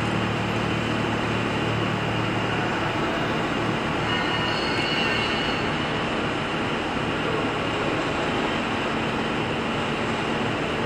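Steady workshop machinery noise: a continuous rushing sound with a low hum under it.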